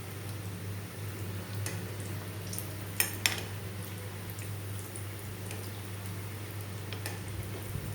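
Gulab jamun dough discs deep-frying in hot oil: a steady soft sizzle with scattered small crackles. Two sharp clicks come a quarter second apart about three seconds in.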